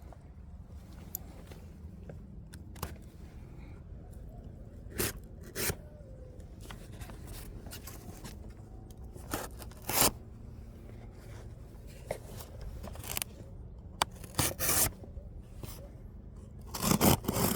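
Packaging of a diecast model car being handled and opened: short, irregular scrapes and rustles, with the loudest cluster near the end.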